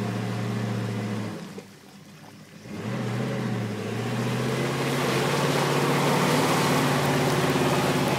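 Engine of a Chevrolet K5 Blazer 4x4 pulling through deep mud. The engine note drops away briefly about two seconds in, then picks up and climbs under throttle. From midway the rushing noise of tyres churning through the mud grows over it.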